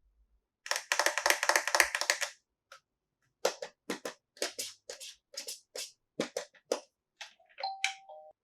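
Small plastic toy pieces handled and set down: a quick rattle of clicks about a second in, then a string of separate light clacks about two a second, with a short steady tone near the end.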